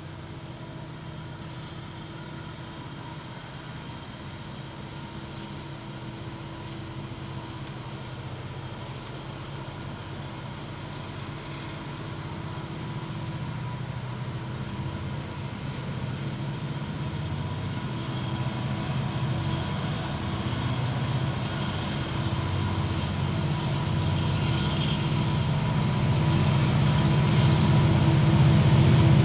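Diesel locomotives leading a doublestack freight train on approach, their engine drone growing steadily louder as they near. A hiss of wheels on rail builds up over the last few seconds.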